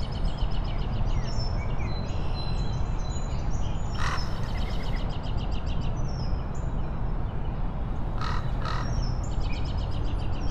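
Outdoor ambience of birds chirping, many quick notes repeated in fast series, over a steady low rumble. A brief hiss comes about four seconds in and two shorter ones near eight and a half seconds.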